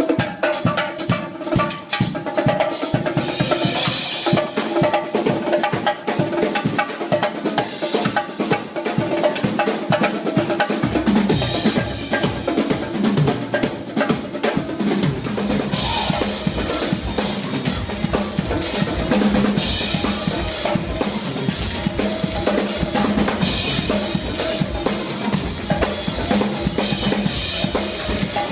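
Live covers band playing with the drum kit loudest, its fast, steady hits over the tune. A low bass line comes in about eleven seconds in.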